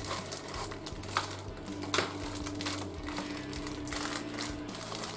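Plastic bag crinkling and crackling as it is cut open and the plastic sprues inside are handled, in irregular short crackles and clicks.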